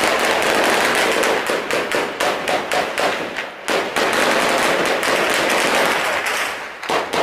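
Heavy automatic gunfire from an armed clash: rapid shots in long, overlapping bursts, echoing, with a brief lull about a second before the end.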